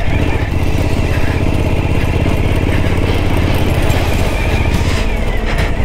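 Suzuki V-Strom 1050XT's V-twin engine running at steady revs as the motorcycle rides on through sand and gravel.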